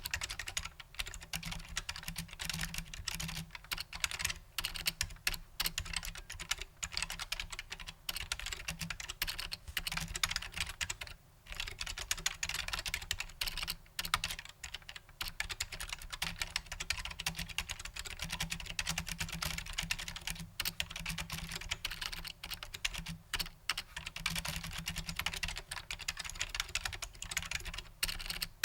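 Fast, continuous typing on a Matias Quiet Pro mechanical keyboard, whose switches are dampened Alps clones, giving soft, muted keystrokes.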